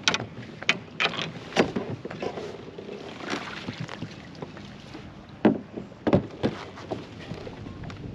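Irregular sharp knocks and clunks of gear against a plastic fishing kayak as the angler handles a landing net and rod, over a steady background of water and wind noise.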